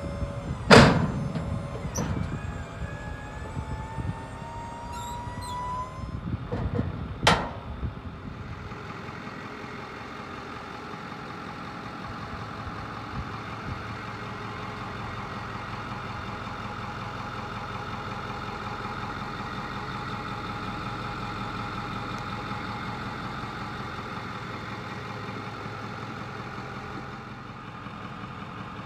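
Hydraulic liftgate on a flatbed truck: a heavy metal thunk of the platform about a second in, an electric pump whine rising in pitch, and a second loud thunk around seven seconds. A steady mechanical hum follows.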